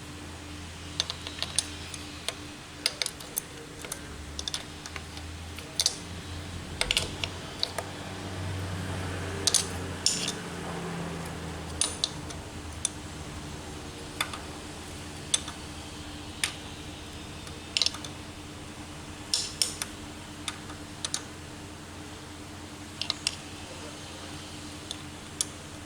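Irregular sharp metallic clicks and taps of hand tools and engine parts being handled, over a steady low hum.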